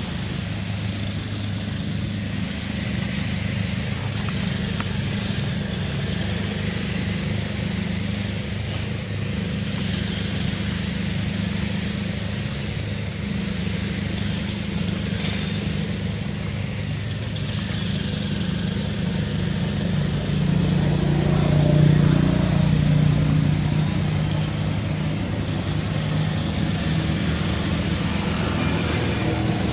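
Steady low engine hum, swelling a little about two-thirds of the way through, with a thin high steady tone above it.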